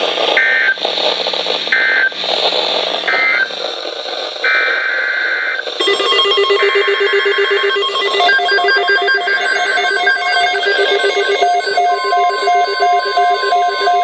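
Emergency Alert System SAME data bursts on NOAA Weather Radio: three short screeching bursts about a second and a half apart, the end-of-message code, then two longer data bursts. From about six seconds in, a rapid, repeating electronic alert beeping follows, and a steady alert tone joins it near the end.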